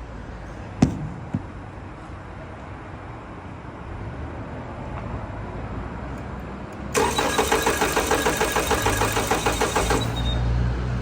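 A sharp click about a second in, then the 2018 Toyota Camry's starter cranking the engine for about three seconds with an even, pulsing rhythm, and the engine not catching: a crank-no-start, here with no spark at the ignition coil.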